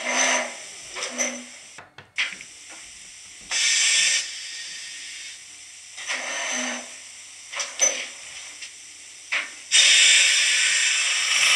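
Sound decoder of an REE Moyse MB-050S model shunting tractor playing starter-cranking attempts in short bursts, about six of them with the longest near the end, the diesel not catching: a simulated failed start on a flat battery.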